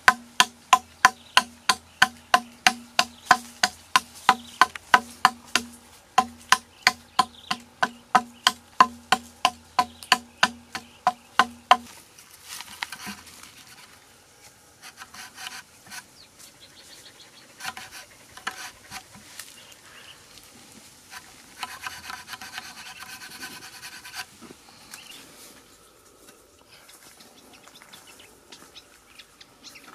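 A hatchet chopping into a green bamboo tube, about three sharp, hollow-ringing knocks a second, which stop about twelve seconds in. After that comes fainter, irregular scraping and rubbing as a hole is bored through the bamboo wall with a metal point.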